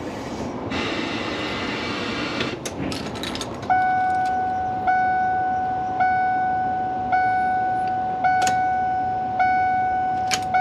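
Ford E-250 van's dashboard warning chime beeping, a steady tone re-struck about once a second, starting a few seconds in after a few clicks. It is sounding from a faulty switch contact rather than from a real warning.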